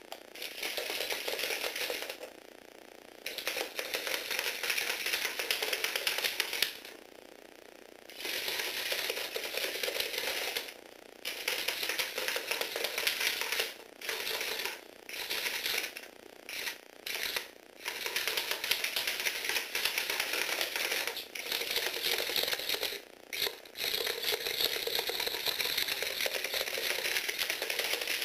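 Lego Technic walking robot running on a wooden floor: its small electric gearbox motor whirs while the plastic legs rattle and clatter. The noise stops and starts again several times, twice for about a second.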